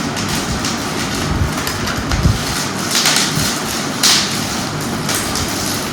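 Steady background noise with two short crinkling bursts about three and four seconds in, as cosmetic packaging is handled during unboxing.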